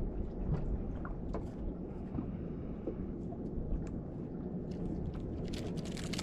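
Steady low wind and water noise around a small fishing boat, with scattered light clicks and ticks of the hook and tackle being handled while a weakfish is unhooked. The clicks come more thickly near the end.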